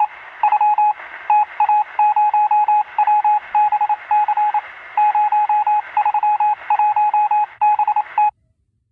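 Morse-code-style beeping: a single high tone keyed in short and longer beeps over a hiss of radio static. It cuts off abruptly near the end.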